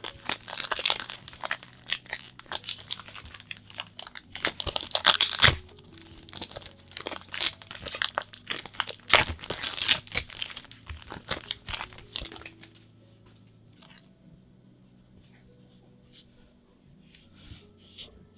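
Plastic wrapping on a pack of trading-card sleeves being torn open and crinkled in a dense run of crackling, loudest about five and ten seconds in. After about twelve seconds it drops to a few light rustles and clicks as the packaging is handled.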